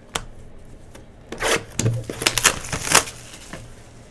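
Cardboard trading-card hobby boxes being handled and pushed across the table, a few bursts of rustling and scraping packed into about two seconds in the middle, over a faint steady hum.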